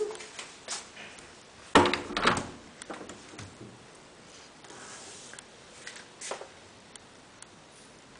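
An interior door being pushed open: a loud clack about two seconds in with a brief rattle after it, then a few faint clicks.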